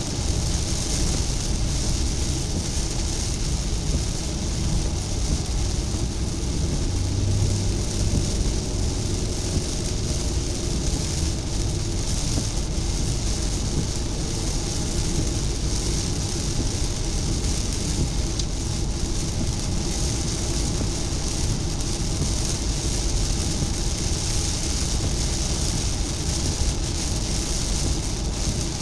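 Steady road noise heard inside a car at highway speed in heavy rain: a deep rumble with the hiss of tyres on the wet road and rain hitting the windshield and roof.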